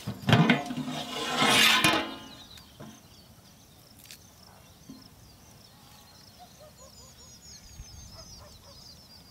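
Metal lid lifted off a large metal cooking pot: a sharp clank, then a loud scraping slide of about a second as it comes off the rim. Later, small birds chirp faintly and rapidly.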